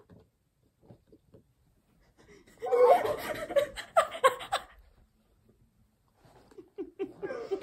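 A young woman laughing hard in a burst lasting about two seconds, starting a little over two seconds in. Softer laughter comes back near the end.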